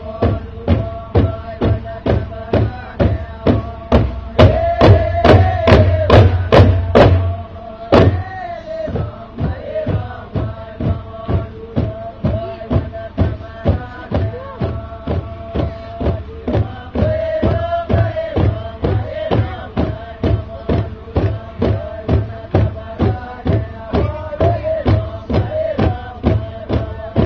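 Traditional chanting: voices hold a sustained, slightly wavering line over steady, evenly spaced drum beats, about two a second. The beats are loudest and heaviest for a few seconds near the start.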